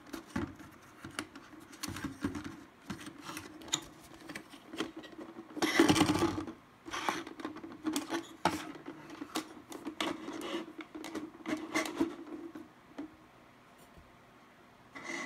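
Handling noise of a clear plastic bottle fish trap: cord rubbing and being pulled tight around wooden skewers, and the plastic bottle crackling and knocking on a cutting mat, in a run of short scratches and clicks. About six seconds in there is a louder rustling crinkle lasting under a second.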